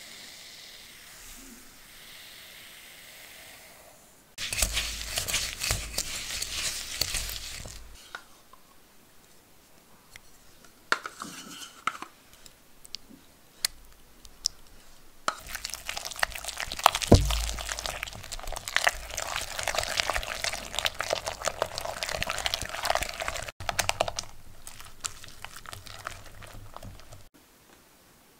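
Sugar poured onto cream cheese in a glass bowl, then a silicone whisk beating the mixture in two long spells of rapid scraping and clicking against the bowl. Quieter strokes come between and after the spells.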